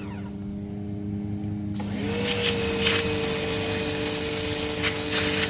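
Electric pressure washer running with a steady motor hum. Its high spray hiss is off at first, then cuts back in sharply about two seconds in, as the motor's pitch rises and settles into a steady higher whine under load.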